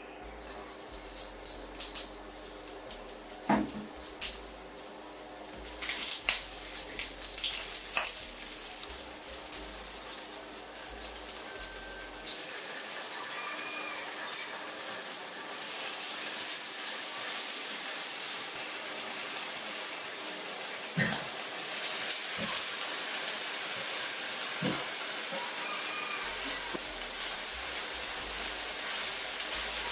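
Food sizzling in hot oil in a frying pan, a steady hiss that starts just after the beginning and grows louder twice. A few sharp knocks of a utensil against the pan along the way.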